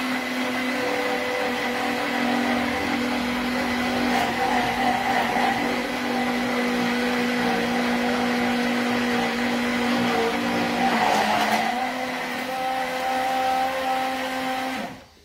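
Hand-held immersion blender running in a mug, emulsifying a whole egg and olive oil into mayonnaise: a steady motor whine whose pitch dips briefly about two-thirds of the way through, cutting off abruptly just before the end.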